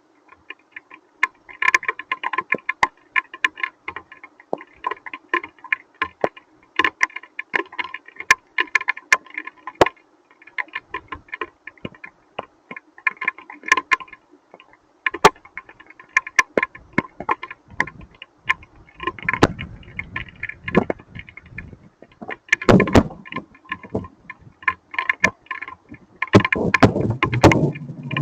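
Hailstones striking a hard surface in a fast, irregular patter of sharp clicks and ticks. There are louder, deeper rushes about two-thirds of the way in and again near the end.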